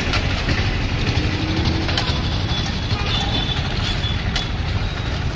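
Vehicle engine and street traffic running with a steady low rumble, with a few sharp scrapes and clinks of steel shovels digging into crushed stone.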